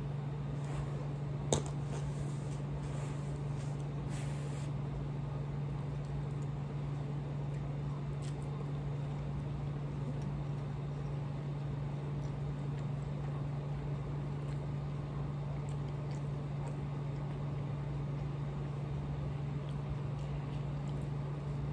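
A steady low hum throughout, with faint eating sounds from a cup of instant ramen noodles eaten with a plastic fork and one sharp click about a second and a half in.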